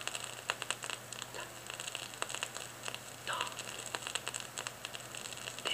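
Vinyl record surface noise in a quiet groove: dense crackle and sharp pops from the stylus over a steady low hum, with a faint voice-like sound a couple of times.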